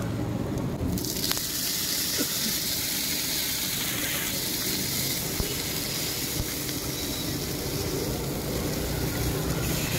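Water splashed into a red-hot wok of stir-fried vegetables about a second in, setting off a sudden, steady sizzling hiss as it flashes to steam.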